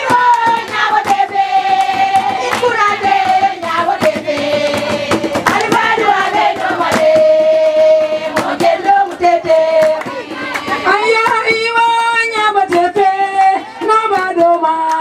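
A group of women singing together in long, slowly falling phrases, with sharp hand claps throughout.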